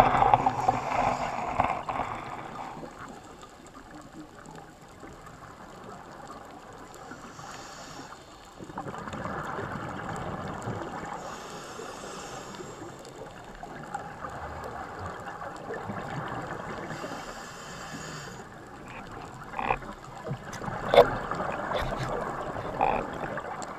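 Underwater sound of a scuba dive heard through a camera housing: a steady muffled rush, with hissy, bubbly bursts every five seconds or so, typical of a diver's regulator exhalations. A few sharp knocks near the end.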